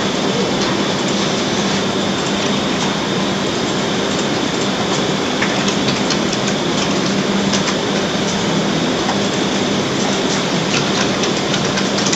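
Steady, loud background hiss with a low hum running under it and scattered faint clicks.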